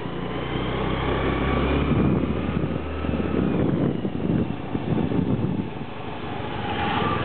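Motorcycle engine running while riding along a road, with wind and road noise on the microphone. A steady low engine hum is clearest for the first three and a half seconds, then the rumbling noise takes over.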